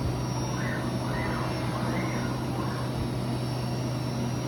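Haas VF-4 CNC machining center running steadily, its spindle turning a two-flute carbide end mill at 7500 rpm for high-speed milling of aluminium: a steady low hum with a faint high whine.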